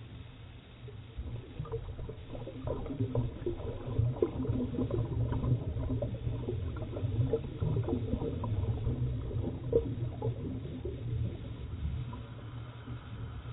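Scuba exhaust bubbles bubbling and gurgling underwater, heard through the camera housing over a steady low rumble. The bubbling builds about two seconds in and eases off near the end.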